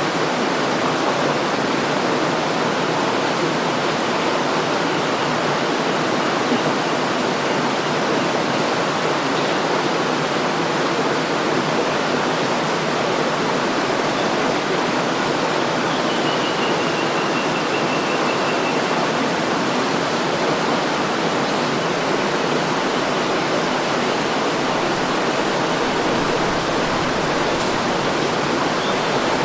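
River water flowing and rushing in a steady, unbroken wash. A faint high whistle, falling slightly, sounds for about three seconds in the middle.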